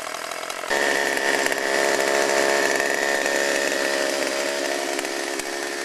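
Two-stroke chainsaw running on reclaimed old mixed gas blended with fresh fuel, to check that the blend works. It is revved up suddenly about a second in, holds at high speed, then eases back toward idle near the end.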